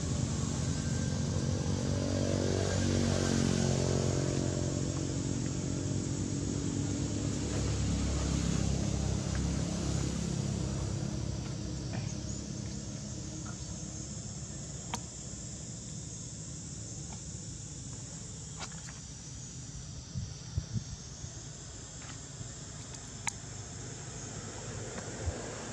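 A motor engine running steadily, its hum slowly falling away over the first ten seconds or so. After that, quieter outdoor background with a few short, sharp clicks.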